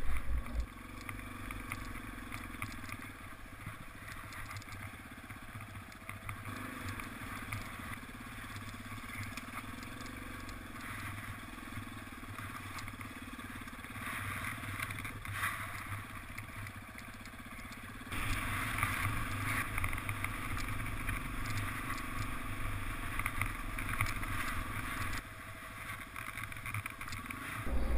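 Motorcycle engine running steadily at low speed as the bike rolls along, with a louder stretch of several seconds about two-thirds of the way through.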